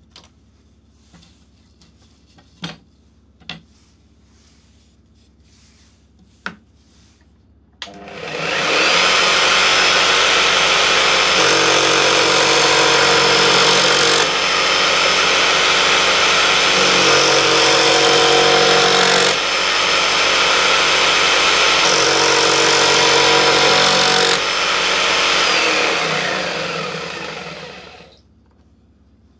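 A few light knocks of wood on the bench, then a table-mounted jigsaw starts about eight seconds in and runs steadily with a high motor whine as wood is fed into the blade, its sound shifting every few seconds. Near the end it winds down and stops.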